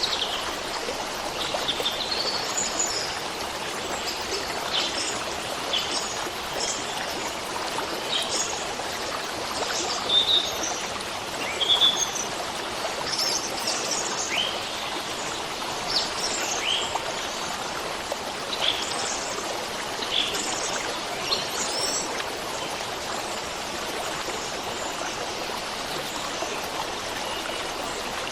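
Stream water running steadily, with scattered short bird chirps and calls over it, fewer near the end.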